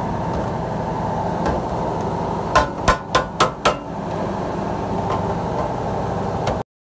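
About five quick hammer blows on a bent sheet-metal tray, in one short burst around the middle, over a steady machine hum; the sound cuts off suddenly near the end.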